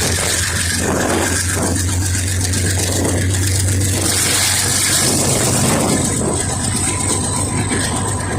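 GE U20 diesel-electric locomotive's engine running with a loud, steady deep drone. Rattling noise from the train comes and goes over the first half, and a faint high whine sits over the drone near the end.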